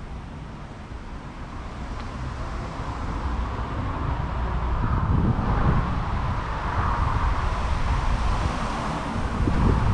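Wind buffeting the microphone in gusts that grow stronger over the few seconds, over a steady background rumble of outdoor vehicle or traffic noise.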